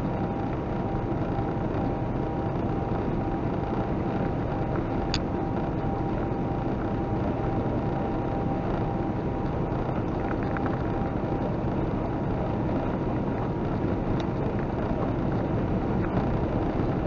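Car cruising at highway speed, heard from inside the cabin: a steady, unchanging rush of road, tyre and wind noise with the engine underneath. There is a single brief tick about five seconds in.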